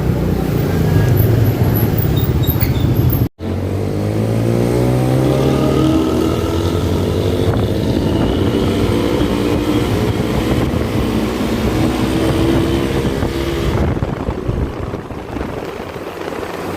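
Intercity bus engine with a loud aftermarket racing exhaust, the growling "ngorok" kind, accelerating: its pitch rises and then holds steady. The sound cuts out for an instant about three seconds in and fades near the end.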